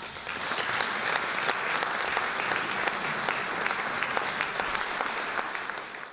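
Audience applauding: dense, steady clapping that fades out quickly near the end.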